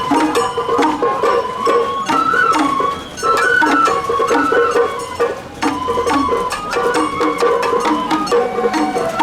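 Sawara bayashi festival music: a shinobue bamboo flute playing a stepping melody over regular drum strokes.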